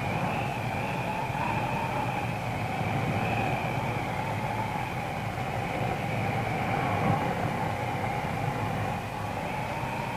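Steady hiss and hum of an old optical film soundtrack with no narration, an even noise with a faint wavering drone.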